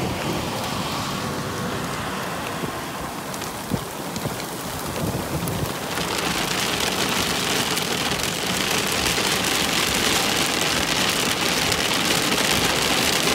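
Heavy rain pelting down in a thunderstorm, growing louder about six seconds in as the downpour intensifies.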